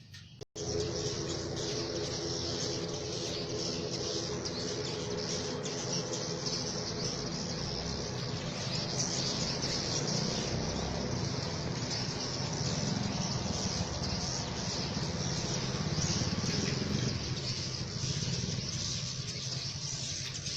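Dense, continuous high twittering of a large flock of edible-nest swiftlets crowding around a swiftlet house entrance, with a low rumble underneath; it cuts in about half a second in.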